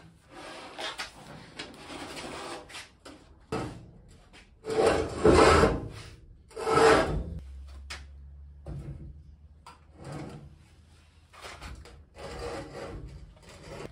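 A heavy old table saw on its steel cabinet base being dragged and walked across a concrete floor: rough scraping and rubbing in several bursts, the loudest two about five and seven seconds in.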